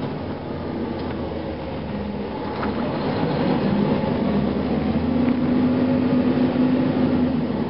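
Cummins ISM diesel engine of a 2004 Gillig Phantom transit bus running under way, heard from inside the passenger cabin with its steady drone and road noise. The engine grows louder from about a third of the way in as the bus pulls ahead, then eases slightly near the end.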